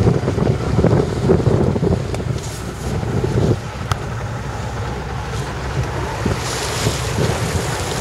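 Wind buffeting the microphone on a small boat at sea, over the wash of choppy water. The gusts are heavier for the first few seconds, then settle to a steadier rush.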